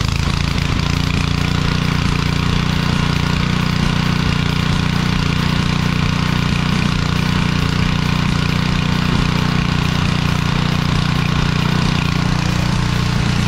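Pressure washer's small engine running steadily at one constant speed.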